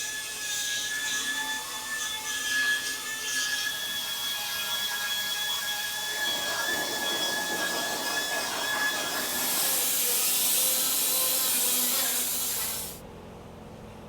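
Power tool working sheet metal: a steady high whine with grinding noise under it, then a louder hiss for a few seconds that cuts off abruptly near the end.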